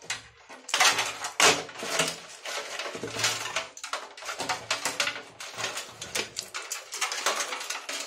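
Power supply cables and their connectors clattering and scraping against the sheet-steel PC case as they are handled and pulled through it: a run of irregular metallic knocks and rattles, the loudest about one and a half seconds in.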